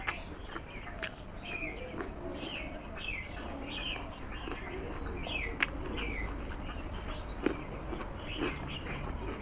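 Birds chirping over and over with short falling calls, behind close-miked chewing of crispy fried pakora with a few sharp mouth clicks.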